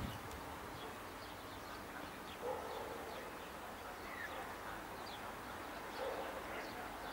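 Birds chirping with short high calls scattered throughout, and a lower call twice, about two and a half and six seconds in, over a faint steady background hiss.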